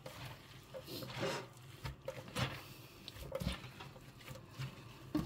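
Hands tossing and squeezing shredded wild garlic shoots with salt in a stainless steel sink, working them for fermenting: soft rustling of the greens with irregular knocks and taps.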